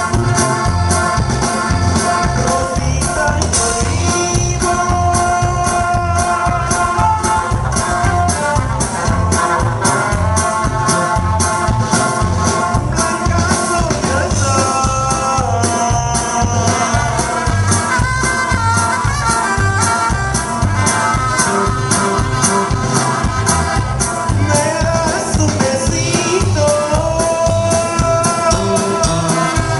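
Live norteño-style band playing dance music: accordion and saxophone melody over electric guitar, bass and drum kit, with a steady beat.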